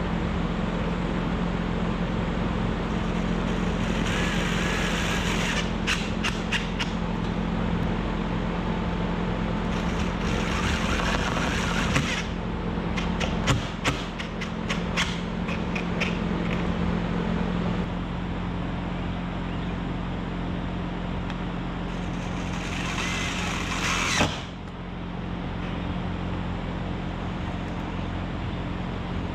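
Cordless drill drilling into the plastic roof panels of a tractor cab in three short whirring bursts, the last spinning down at the end, with sharp clicks in between. A steady low hum runs underneath.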